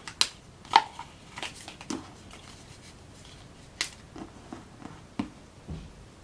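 Handling noise from small plastic gadgets: a scattered series of clicks and light taps, the loudest about three-quarters of a second in and another sharp click near four seconds.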